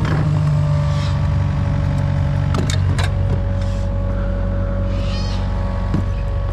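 Diesel engine of an earthmoving machine running steadily at low revs, with a few sharp metallic clanks about two and a half to three seconds in and a short high squeal about five seconds in.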